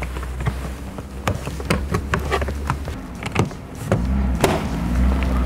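Plastic interior trim being handled and fitted back into place: a series of irregular clicks and knocks over a low steady hum.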